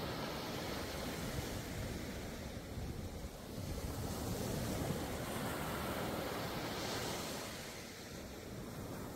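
Waves breaking and washing up the beach in a slow, rising and falling hiss that swells twice, with low wind rumble on the microphone.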